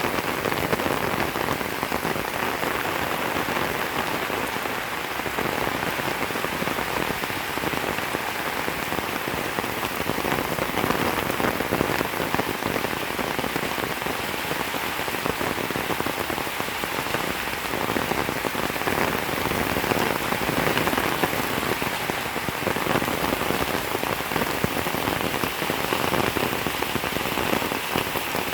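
Steady heavy rain falling, with dense pattering drops on a surface.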